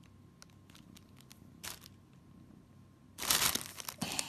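Clear plastic bag crinkling as a kitten moves and paws inside it: faint scattered crackles, a short rustle about two seconds in, then a louder burst of crinkling a little after three seconds and one more near the end.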